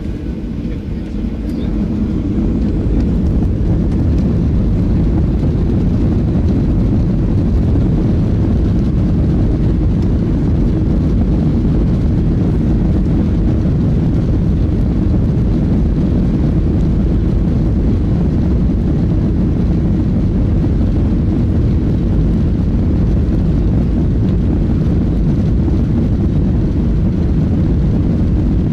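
Airliner's engines building to take-off power over the first few seconds, then a steady loud rumble of the take-off run.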